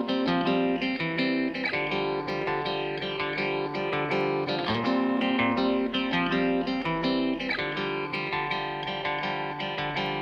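Background music led by a plucked guitar, playing continuously.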